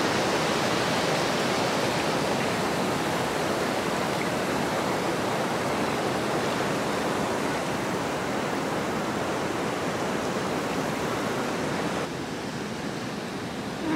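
Steady rushing of a wide river flowing over a low weir. It gives way to a quieter, duller hiss about twelve seconds in.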